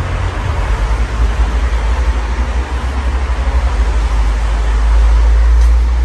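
Air from a running Casablanca Spirit Of Saturn ceiling fan buffeting the microphone: an uneven low rumble that swells near the end, over a steady rush of moving air.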